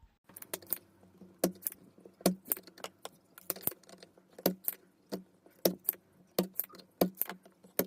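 Irregular sharp metallic clicks and clinks of tools and small metal parts as the two bass amplifier ICs are taken out of the home theatre's amplifier board.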